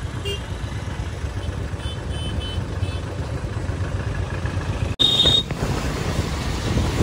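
Royal Enfield Classic single-cylinder motorcycle engine running on the move in traffic. About two seconds in, a vehicle horn toots in a quick series of short beeps. The sound drops out for an instant about five seconds in, and a brief high beep follows.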